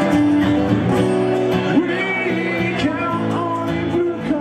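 Live acoustic guitars strummed by a small band, with a man singing over them.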